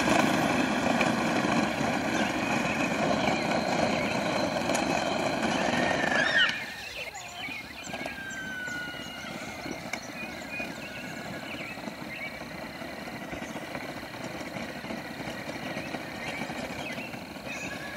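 A steady rushing noise that stops abruptly about six and a half seconds in, leaving a quieter outdoor background with birds chirping.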